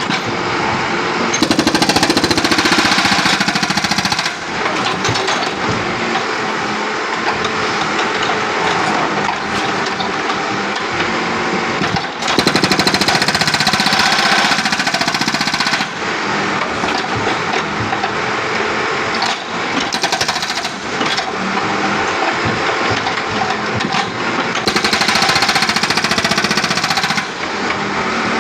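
Backhoe-mounted hydraulic breaker hammering a 5-inch concrete slab in rapid, continuous blows, with the backhoe's engine running underneath. The hammering grows louder and harsher three times, about a second in, around the middle and near the end.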